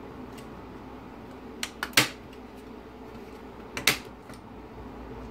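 Sharp plastic-and-metal clicks as a replacement LCD screen in its metal frame is pressed onto an Audi TT speedometer's circuit board. Three clicks come close together about two seconds in, the last the loudest, then a quick pair nearly two seconds later.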